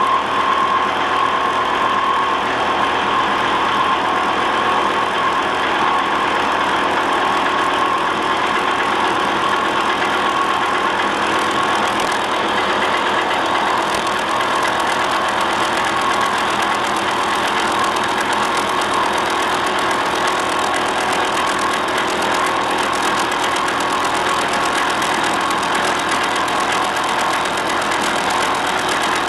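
Vertical milling machine cutting a notch through a cast bearing block, the cutter running in a steady continuous cut with a constant whine over the noise of the cut.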